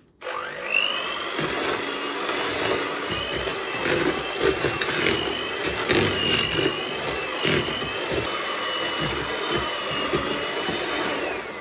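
Electric hand mixer switched on, its whine rising as it spins up, then running steadily as its beaters churn a damp breadcrumb and chicken-pellet groundbait mix in a plastic tub, with a few sharp knocks along the way. The whine falls away as it is switched off near the end.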